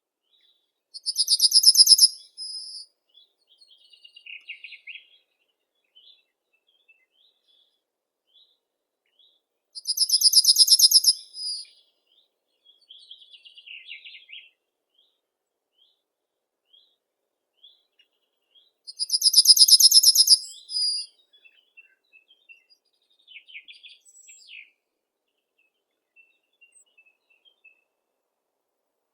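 Songbirds singing: one bird gives a loud, high, fast trill of rapidly repeated notes three times, about nine seconds apart, while other birds chirp faintly in between.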